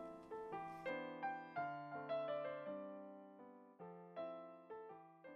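Background piano music: soft single notes and chords, each struck and left to fade, growing sparser and quieter toward the end.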